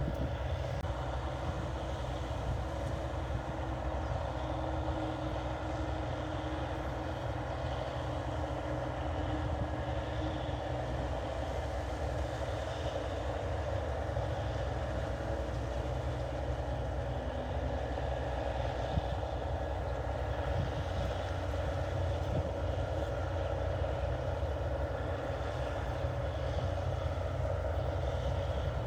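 New Holland 8080 combine harvester running steadily as it harvests rice paddy.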